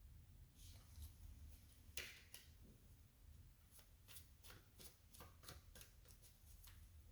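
Tarot cards being shuffled by hand: a faint, quick run of card flicks and snaps, with a louder swish about two seconds in.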